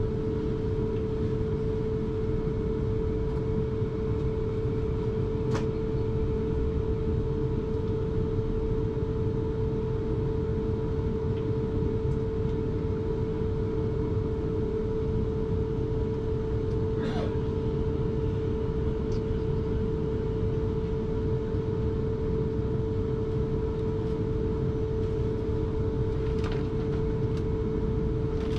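Inside an electric suburban passenger train running between stations: a steady whine over the low rumble of wheels on the track, with a few faint clicks.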